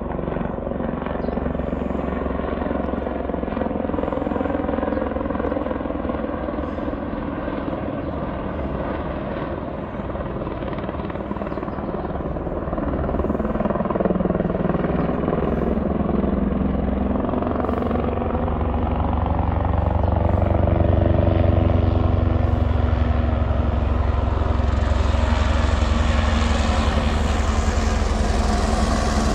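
Helicopter rotor chopping steadily, growing louder and fuller as the helicopter approaches over the trees.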